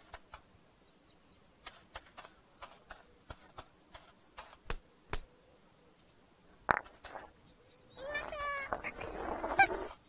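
Light, irregular clicks for the first few seconds, then one sharper click. From about eight seconds in comes a puppet character's high, wavering effort voice as he strains to push a large stone.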